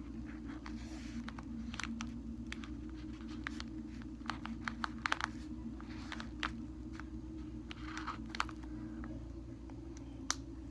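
Faint scratches, small taps and paper crinkles as a face is drawn with a pen on a paper squishy, over a steady low hum.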